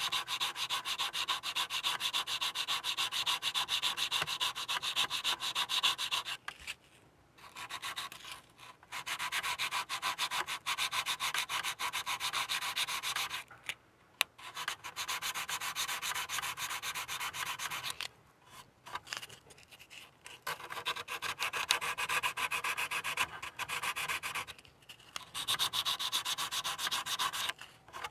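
Sandpaper rubbed back and forth in quick short strokes over the glued seam of a plastic model ship hull, sanding the seam line away. The strokes stop for a second or more several times, around 7, 14, 19 and 26 seconds.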